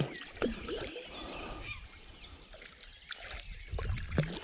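Quiet waterside ambience at night: faint trickling and small splashes of water with scattered clicks, and a few faint animal calls.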